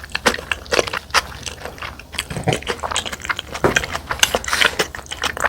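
Close-miked eating sounds: chewing soy-marinated salmon and rice, with quick irregular mouth clicks and smacks throughout.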